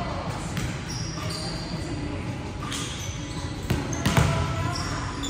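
Indoor volleyball play: several sharp slaps of the ball being hit, the loudest a little over halfway through, mixed with short high squeaks of sneakers on the court floor.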